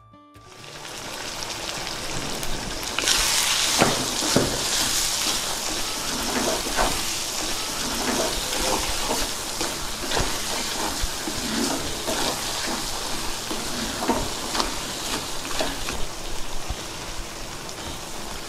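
Prawns sizzling as they fry in a pan with their cooking water nearly boiled off. A spatula stirs in the newly added spices with scraping strokes. The sizzle builds at first and grows louder about three seconds in.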